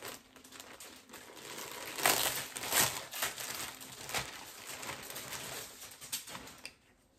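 Packaging crinkling and rustling in irregular handfuls as a pair of leggings is pulled out of its bag, loudest about two to three seconds in and fading out near the end.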